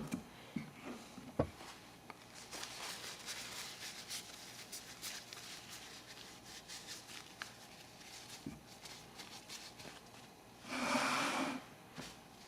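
Handling noise from a small gas lighter being worked by hand: a couple of sharp clicks, faint ticks and rubbing, and a short louder rush of noise near the end.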